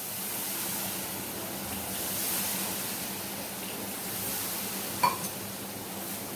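Soft, steady sizzling hiss of moistened gram-flour (besan) stuffing in a frying pan as it is rubbed and mixed by hand, just after a splash of water. There is one brief click about five seconds in.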